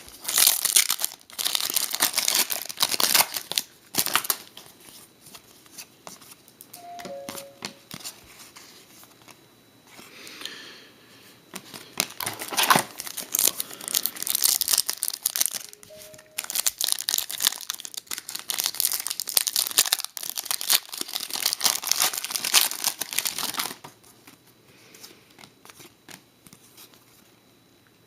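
Hockey card pack wrappers being torn open and crinkled. The crinkling comes in several loud bouts with quieter stretches between, and dies down near the end.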